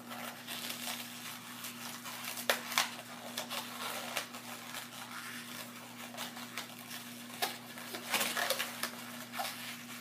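A long latex modelling balloon being twisted into bubbles by hand: rubber rubbing, creaking and crinkling, with scattered sharp clicks and a steady low hum underneath.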